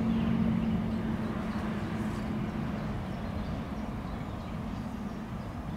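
Steady low outdoor rumble, with a low hum that fades away over the first couple of seconds.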